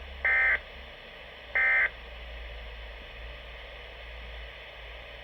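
Two short, buzzy electronic beeps about a second and a half apart on a Weather Radio Canada broadcast, separating bulletin messages. After them comes a steady low hum and hiss on the radio feed.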